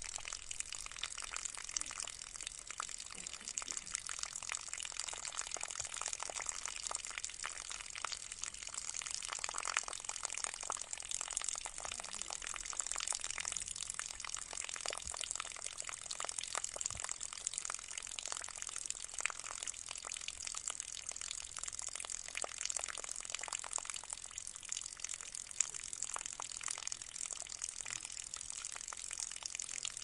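Tabletop pot fountain running: water pouring from a tilted jug into a bowl and spilling into the basin below, a steady trickle with many small splashes.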